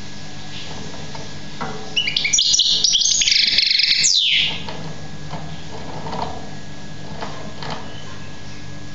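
Young goldfinch singing: a dense burst of high, twittering notes about two seconds in, lasting about two and a half seconds and ending in a falling note, then a few faint short notes. A steady low hum runs underneath.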